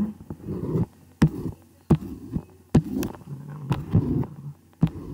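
Computer mouse clicking, a sharp click about once a second at uneven intervals, over low dull thumps close to the microphone.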